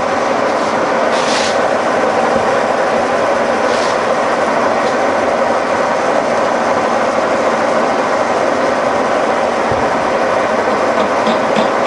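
Old horizontal milling machine running steadily, its gear drive droning as a boring bar turns in the drive mount, with a light regular ticking near the end.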